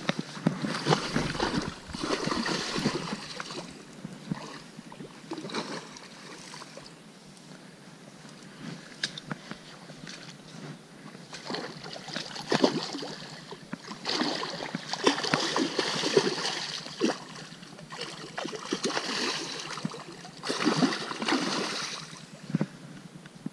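A hooked sea trout thrashing and splashing at the surface of a small stream as it is played on a rod. The splashing comes in several bursts: right at the start, again for a few seconds from about twelve seconds in, and once more about twenty seconds in.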